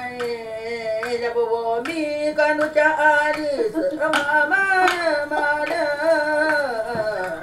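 A woman singing an improvised daily-life chant solo, in long held, wavering notes, phrase after phrase with short breaks between.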